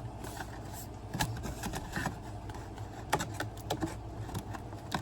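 Light clicks and rattles, scattered irregularly, as a zip-up tool kit and its packaging are handled and packed back into the box, over a steady low hum.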